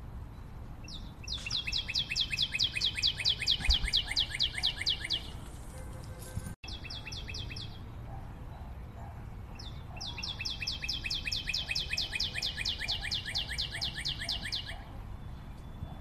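A cockatiel calling in fast runs of short, repeated chirps, about seven a second, with each note falling slightly in pitch. There are two long runs of several seconds each, and a short run between them.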